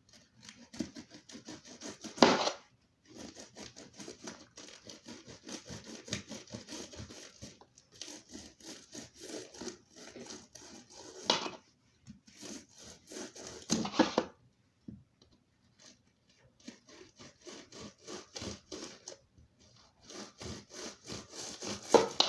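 A knife sawing through a rubbery moonball bouncy ball in runs of rapid strokes with short pauses between them, and a few louder knocks.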